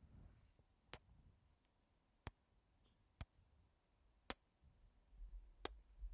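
Quiet, sharp mouth clicks close to the microphone, five of them about a second apart at uneven intervals, with a soft low rumble near the end.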